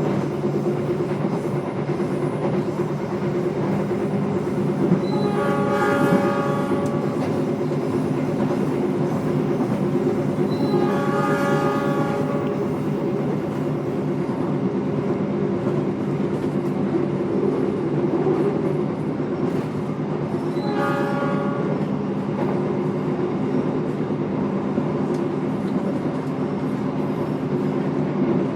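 Steady running rumble and hum heard from inside an executive-class train carriage. The train's horn sounds three times over it, about five, eleven and twenty-one seconds in, with the middle blast the longest.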